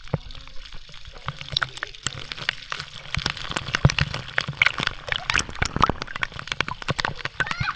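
Swimming-pool water splashing and sloshing right at the microphone, many quick sharp splashes that grow busier from about halfway.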